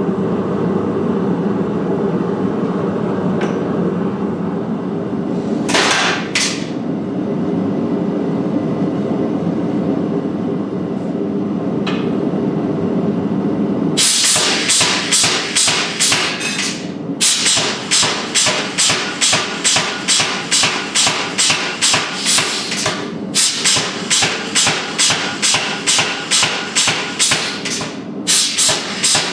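A steady low rumble with a few separate knocks, then from about halfway a hammer striking steel in a long quick run of blows, about two to three a second, pausing briefly a few times.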